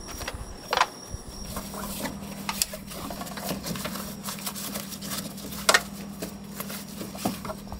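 Gear being handled in the back of a van: scattered clicks and knocks with light rustling, over a faint steady low hum that starts about a second and a half in.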